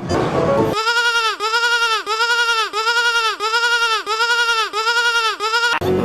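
A sheep bleat sound effect looped rapidly: about eleven identical bleats, each rising then falling in pitch, roughly two a second, after a brief hiss-like rush at the start.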